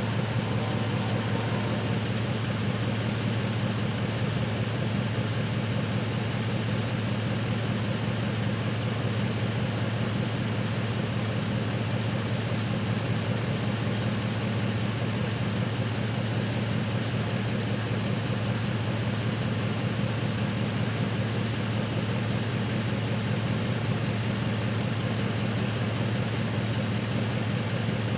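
Truck engine idling steadily, its low hum even and unchanging throughout.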